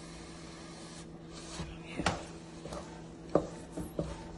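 Wooden spoon stirring thick pap (maize-meal porridge) in a nonstick pan. Irregular scrapes and knocks against the pan begin about a second in, over a steady low hum.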